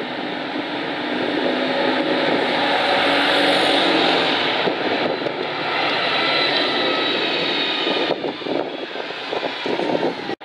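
Single-decker diesel buses driving past close by, one after the other, with engine and tyre noise that grows to its loudest a few seconds in and stays up while the second bus passes, then eases off and cuts off abruptly at the end.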